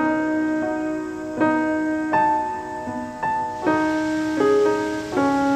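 Background piano music: slow chords struck about once a second, each ringing on until the next.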